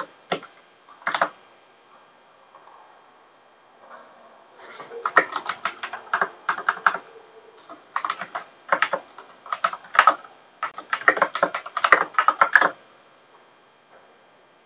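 Typing on a computer keyboard: a couple of single keystrokes at first, then after a pause several seconds of quick keystrokes in bursts, stopping shortly before the end.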